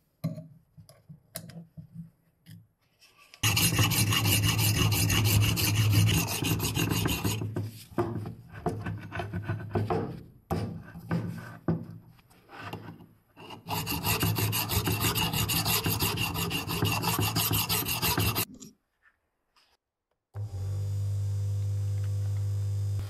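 Flat sharpening stone on a guided sharpening jig rubbing back and forth along the steel edge of an old mortising axe in quick strokes, with two long runs of strokes and sparser ones between them. About 20 seconds in, after a short silence, a bench polishing motor with a buffing wheel starts running with a steady hum.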